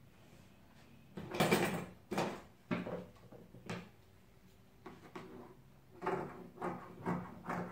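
White faux fur fabric rustling as it is spread and shifted on a workbench, loudest about a second and a half in. Near the end, scissors cut into the fur in short strokes about twice a second.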